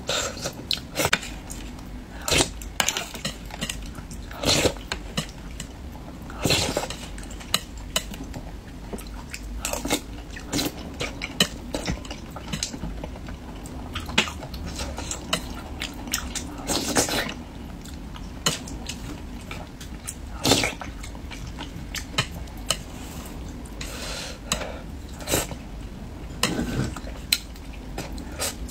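A person eating braised fish: chewing, biting and mouth sounds, with chopsticks and a spoon clinking against the dish and bowl, in irregular short clicks and strokes.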